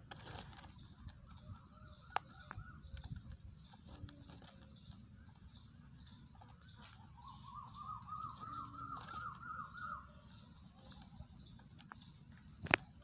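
Caged male black francolin calling: a run of about ten quick, repeated rising notes in the middle, with a fainter run of similar notes early on. A sharp knock near the end is the loudest sound.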